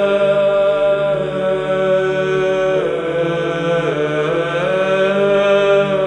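Male monastic choir singing Russian Znamenny chant, unaccompanied. Low voices hold steady beneath a slow melody that dips in pitch near the middle and rises back.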